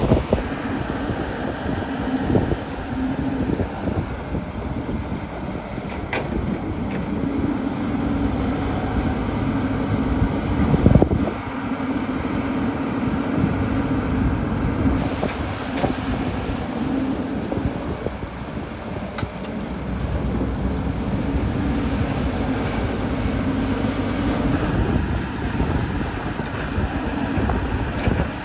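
Excavator's diesel engine running steadily, with scattered knocks and a loud clunk about eleven seconds in.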